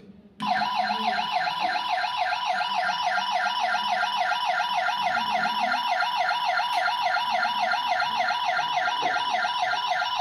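Toy police motorcycle's electronic siren sound, set off by pressing the toy. It starts about half a second in and runs as a fast warbling wail, about three rises and falls a second.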